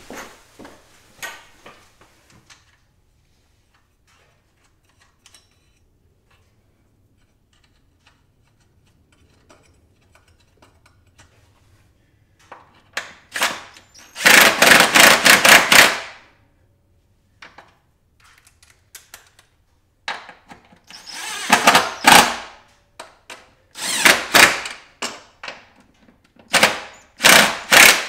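Cordless power driver spinning the nuts down on the strut-top studs to hold a strut tower bar. After a stretch of near quiet with a few light clicks, it runs once for about two seconds, then in three shorter runs near the end.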